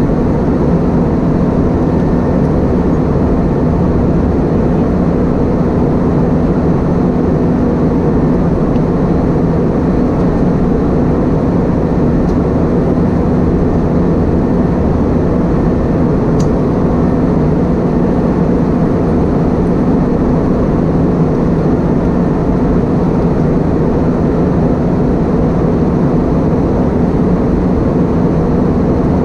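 Steady cabin drone of an Airbus A320-232 heard from a window seat: the rumble of its IAE V2500 turbofan engines and airflow, holding an even level with a low hum.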